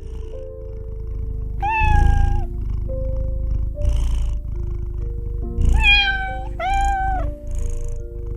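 Domestic cat purring steadily, with three meows: one about two seconds in and two close together near the end. Background music plays underneath.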